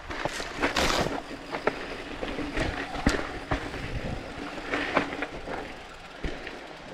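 Polygon Siskiu T8 mountain bike rolling down a rough, rocky descent: tyres crunching over dirt and rock, with irregular clicks and knocks as the bike rattles over the bumps and rock steps.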